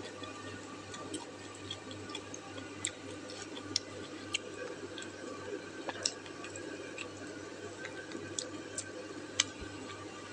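Someone eating wonton noodle soup: irregular small wet mouth clicks and smacks of chewing, over a faint steady low hum.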